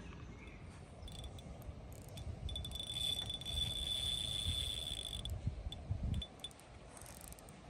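Spinning reel's drag giving line to a hooked carp, a steady high buzz for about three seconds, over low wind rumble on the microphone.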